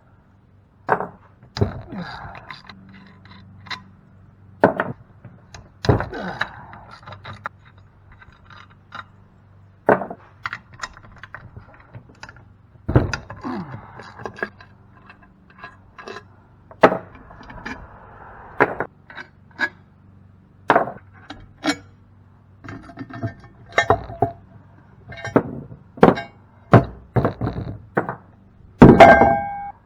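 Hand tools and cast-aluminum pump parts clinking and knocking irregularly as the pump is taken apart, with a louder ringing metal clank near the end.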